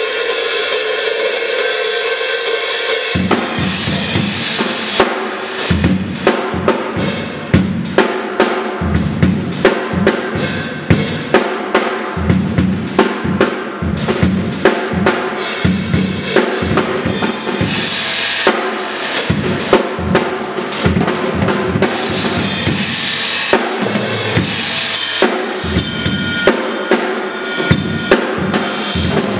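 Acoustic drum kit played solo: a ringing cymbal wash for about three seconds, then the kick drum and snare come in with fast, busy patterns under continuing cymbal crashes.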